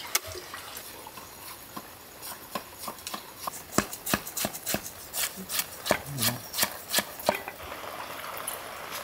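A quick run of sharp chopping strikes, about three or four a second, starting about two seconds in and stopping about seven seconds in.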